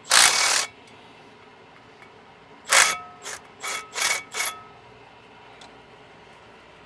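Hand ratchet wrench working on a bolt, likely loosening the drive shaft bolts: one long burst of ratcheting right at the start, then five short strokes about two seconds later with a faint metallic ring.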